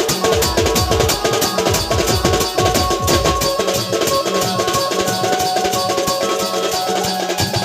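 Dhumal folk band music: rapid, dense drumming with a held melody line over it.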